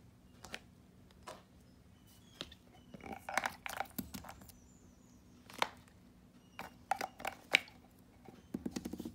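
Small toys being handled and set down on a table: scattered taps and clicks, with busier clusters about three seconds in and about seven seconds in, and a quick run of about eight light ticks near the end.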